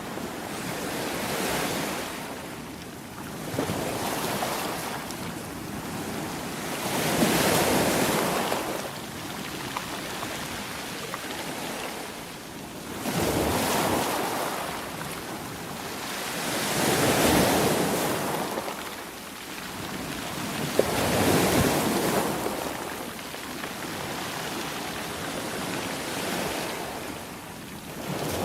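Sea surf: waves rushing in and washing back, the noise swelling and fading in surges every four seconds or so.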